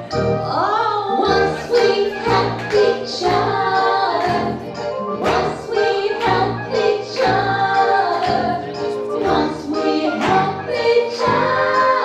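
A song sung by a group of voices in chorus over a musical accompaniment.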